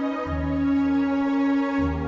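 Slow, gentle background music: a long held note over low bass notes that change about every second and a half.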